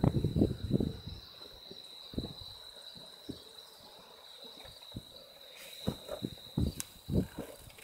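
Insects in the roadside grass trilling steadily, a high continuous tone. A few low thumps also sound, loudest in the first second and again near the end.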